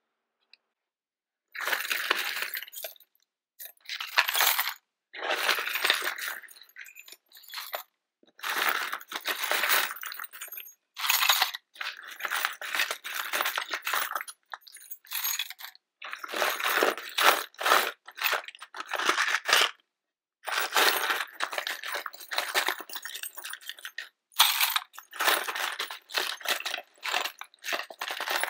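Loose coins, keys and small metal odds and ends clinking and jingling as a hand rummages through a junk drawer. The jingling comes in bursts of a second or two with short silent breaks between them.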